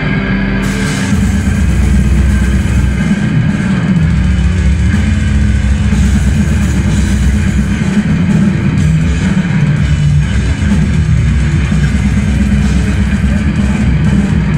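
A live death metal band playing at full volume: distorted guitars, bass and drums, recorded from the crowd on a phone. About a second in the full band comes in over the end of a sustained, eerie intro.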